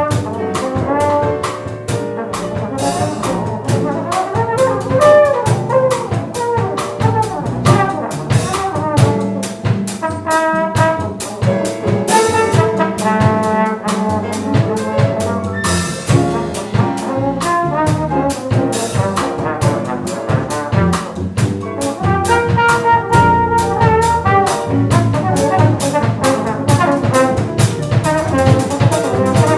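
Trombone soloing over a jazz rhythm section of upright bass, piano and drum kit, the cymbals keeping a steady beat.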